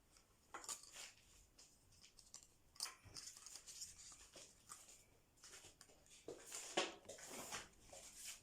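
Faint rustling and soft clicks of things being handled, a few separate scrapes with a louder one near the end.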